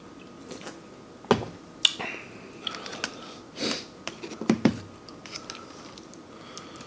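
Close-miked eating and drinking: a few sharp clicks and taps as a drink can, a plastic fork and chopsticks knock against foam and foil takeout containers, with a quick cluster of clicks past four seconds and a short rustle just before it.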